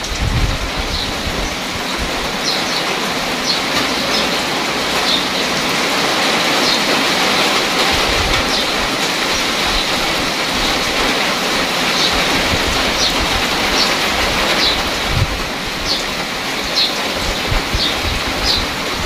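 Steady rain falling into a shallow puddle on grass and gravel, a dense even patter. Short high ticks stand out over it about once a second.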